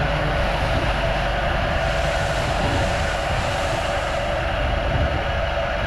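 Pressure washer running steadily, water spraying from the gun.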